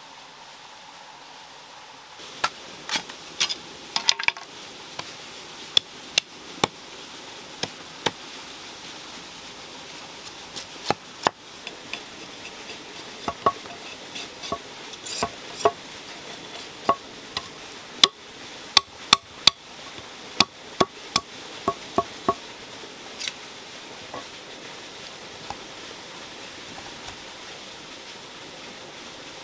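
A hand hammer striking metal in an uneven rhythm, some blows ringing briefly. The strikes begin about two seconds in, come in clusters, and grow sparse in the last several seconds, over a steady hiss.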